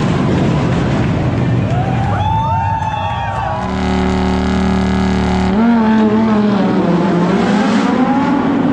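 Sports-car engines revving hard in an echoing underground car park. About three and a half seconds in, a Lamborghini Huracán's V10 holds one steady high rev for about two seconds, then the revs rise and fall again.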